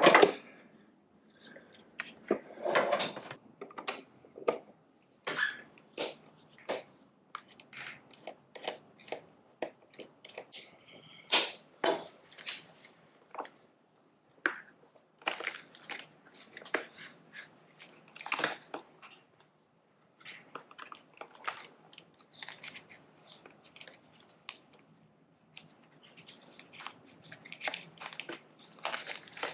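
Irregular clicks, taps and small knocks of hand tools and parts being handled on a motorcycle while its battery is disconnected, a few sharp sounds a second with short pauses between.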